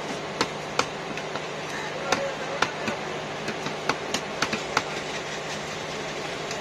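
A heavy cleaver chopping carp pieces on a wooden chopping block: about nine sharp chops at an irregular pace, coming quicker in the second half.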